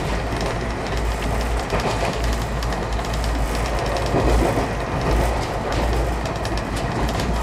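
Passenger train running at speed, heard from inside a coach: a steady rumble and rush of air, with wheels clicking over the rail joints.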